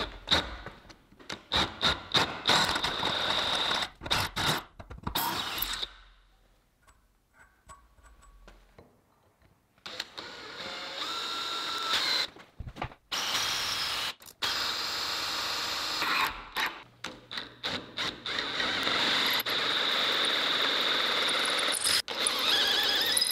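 Handheld power tool working small metal parts (a spring, an old concrete anchor, an aluminium stop) in repeated runs of steady noise, with clicks and knocks of handling and a short quiet spell about six seconds in.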